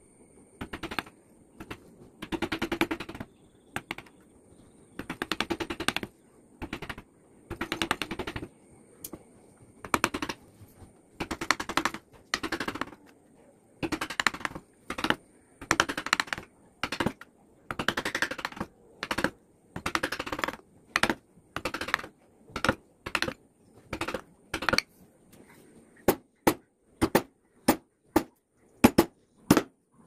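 Carving chisel cutting into a teak panel under light, rapid mallet taps: runs of quick tapping, each about a second long, one after another. Near the end it gives way to single sharp taps about twice a second.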